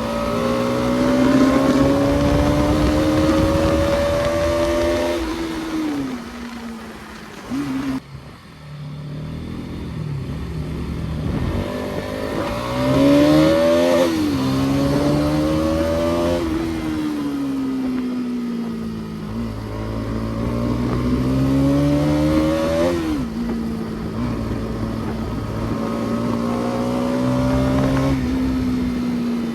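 Bajaj Pulsar NS200's single-cylinder engine pulling under way, its note climbing with throttle and falling back several times, with short dips near the start of the ride and again about two-thirds in.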